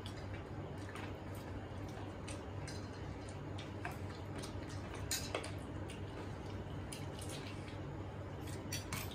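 Quiet eating sounds: scattered light clicks of a spoon against a bowl and of plates being touched, over a steady low hum.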